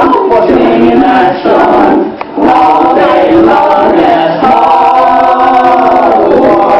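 Several voices singing a tune together without clear words, loud and held, with short breaks about one and a half and two seconds in.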